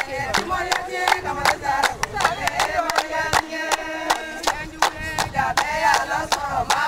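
A group of women singing together in chorus, with steady rhythmic hand clapping at about four claps a second.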